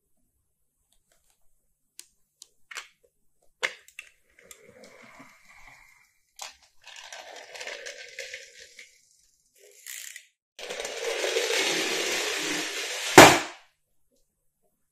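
A small toy car rolling across a laminate floor for about three seconds, a steady rolling rattle that ends in one loud knock. Before it come a few faint clicks and short, quieter scraping stretches.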